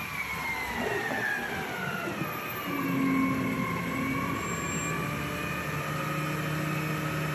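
A natural-gas automated side-loader garbage truck running as it passes close by, with a whine that falls in pitch over the first three seconds and then holds steady. The truck's engine hum grows louder about three seconds in.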